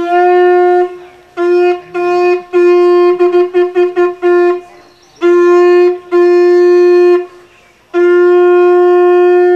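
A hand-held horn blown on a single unchanging note as a call to gather an audience: a few long blasts, a run of quick short toots in the middle, then more long blasts ending in one held note.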